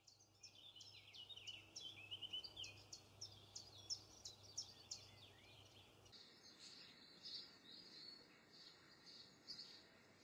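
Faint chirping of small songbirds: many short, high notes in quick succession, some sliding down in pitch, over a light hiss of outdoor background.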